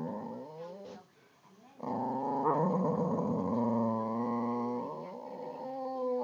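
Boxer dogs growling as they squabble over a wiffle ball: long, drawn-out growls with a short break about a second in, then growling again and a further growl near the end.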